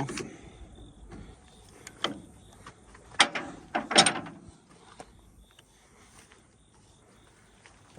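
A pipe wrench working a hydraulic cylinder's gland nut loose: a few metal clanks and scrapes, the two loudest about three and four seconds in.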